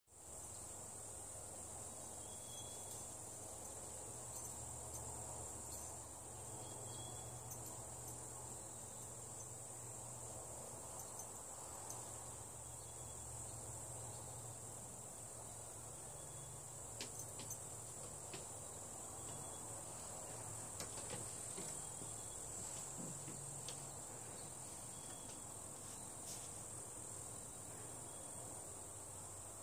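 Steady high-pitched trilling of an insect chorus, with a short high note repeating about every four seconds and a few faint clicks.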